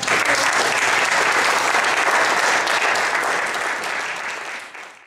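Audience applauding, many hands clapping at once, fading out near the end.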